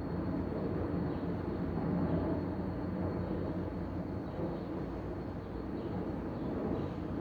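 Outdoor city ambience: a steady low rumble of traffic, with no distinct single event standing out.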